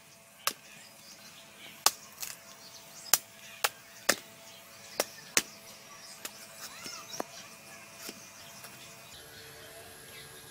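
A knife chopping into the tough husks of ice apples (palmyra palm fruit): about a dozen sharp, irregular strikes, roughly one a second or faster, with the later ones fainter.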